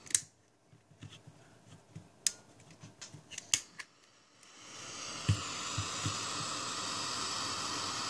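A few sharp clicks, then a hand-held gas torch is lit about four and a half seconds in and burns with a steady hiss.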